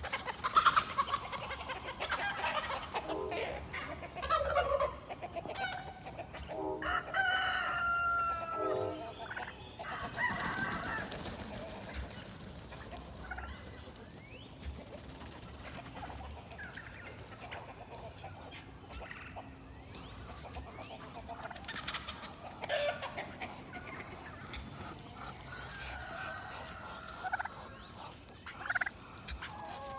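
Backyard poultry calling: roosters crowing and hens clucking, with a turkey gobbling among them. The calls are densest in the first ten seconds, thin out, then pick up again near the end.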